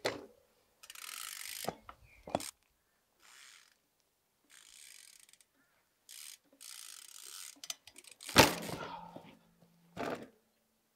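Trials bike's freehub ratchet buzzing in short bursts. About eight and a half seconds in the bike crashes to the ground with a loud clatter on a failed bar-spin attempt, and a lighter knock follows about a second and a half later.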